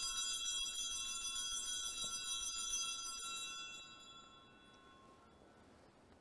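Altar bells rung at the elevation of the chalice during the consecration, ringing out and fading away over about four seconds.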